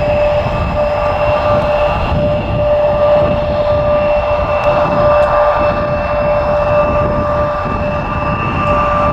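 Embraer ERJ-175 jet's turbofan engines running steadily at taxi power: a constant high whine that holds its pitch, over a heavy low rumble.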